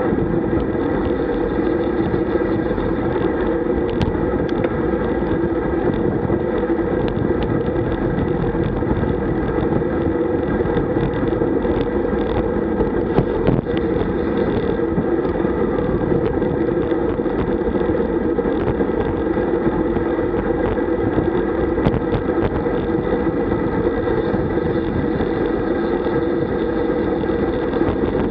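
Steady wind and road noise on a road bike's mounted camera riding at about 40–47 km/h, with a few light clicks.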